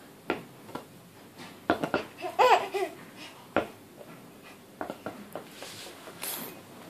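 Baby squealing and laughing with a high, rising-and-falling pitch about two and a half seconds in, between a few short knocks and taps from a rubber play ball being batted and caught.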